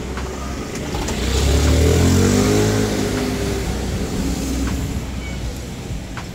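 A car driving past on the street, its engine swelling to loudest about two seconds in and then fading as it moves away, its pitch falling.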